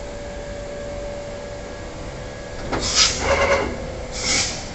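Vertical machining centre's automatic tool change: a steady whine as the umbrella-type tool magazine indexes, then two loud bursts of air hiss, the first about three seconds in and lasting about a second, the second shorter near the end.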